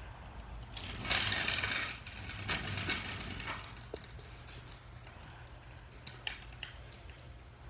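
A jack being worked to lift a go-kart: a loud burst of metallic rattling about a second in, then a few separate clanks and scattered lighter clicks.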